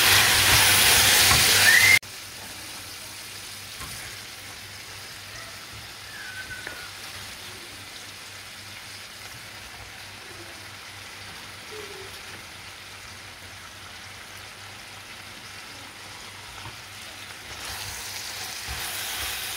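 Cabbage and onion sizzling in oil in a frying pan, stirred with a wooden spoon, as the cabbage is sautéed down to shrink its volume. About two seconds in the sizzle drops suddenly to a much quieter, steady frying sound, which grows louder again near the end.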